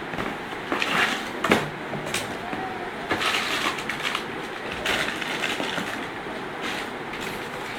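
Packaging being handled during an unboxing: irregular rustling and scraping, with a couple of sharp knocks about one and a half seconds in.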